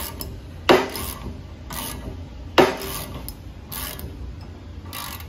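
Ratcheting on the threaded rod of a puller-type press that is forcing a timing sprocket onto an LS V8's crankshaft snout. Sharp clicks come about once a second, two of them much louder than the rest, as the very tight fit is worked on.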